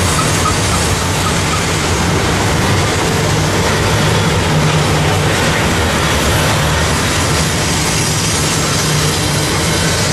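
Double-stack intermodal freight cars rolling past, their steel wheels running on the rails in a steady, unbroken noise.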